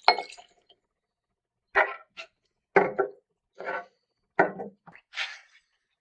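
Glassware clinking and knocking on a wooden table: a sharp ringing clink at the start as a shot glass tips whiskey into a cut-crystal rocks glass, then about eight short knocks and clinks of glasses and bottles being set down, and a brief scrape near the end.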